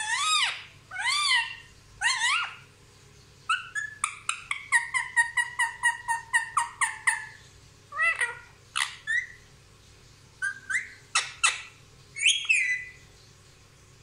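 Indian ringneck parrot calling: three rising-and-falling calls at the start, then a rapid run of short chirps about six a second for some three seconds, then scattered single calls and squawks.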